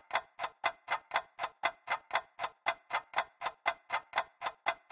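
Clock ticking steadily, about four sharp ticks a second.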